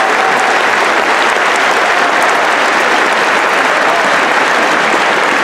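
A large crowd applauding, a dense steady clatter of many hands clapping.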